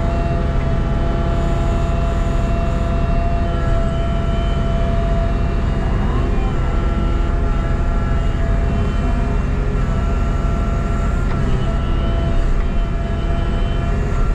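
Excavator's diesel engine running steadily at working speed, with a steady tone over the engine note.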